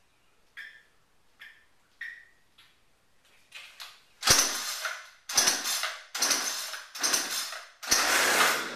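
Recoil starter cord of a new gas string trimmer pulled five times in quick succession, each pull a sharp, rough whirring that fades out, with a few light clicks before the first pull. The engine will not start.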